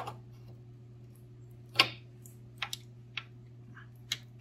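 Sharp metal clicks and taps as a steel motorcycle footpeg, its return spring and an Allen key are worked into a footpeg mount bracket, the loudest about two seconds in, over a steady low hum.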